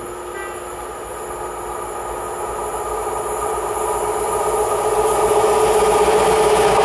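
Class 60 diesel locomotive's eight-cylinder engine running under power as it approaches with a train of tank wagons: a steady drone with a held hum, growing steadily louder as it nears.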